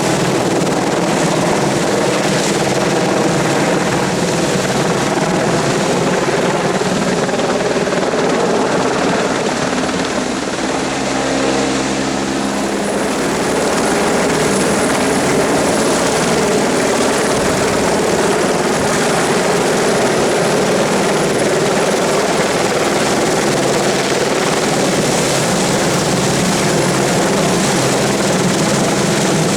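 Helicopter running steadily, its turbine and rotor noise continuous and loud, easing slightly about ten seconds in before returning.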